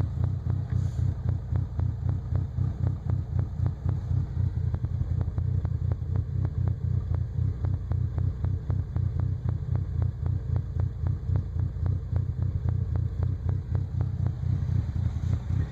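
1998 Nissan Frontier's 2.4-litre four-cylinder engine idling roughly, its low running sound uneven and wavering in level several times a second.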